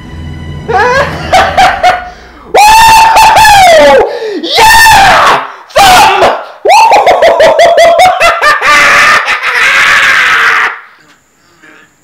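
A man laughing loudly and hysterically in quick pulses, breaking into long high-pitched shrieks that trail down in pitch. It cuts off abruptly about a second before the end.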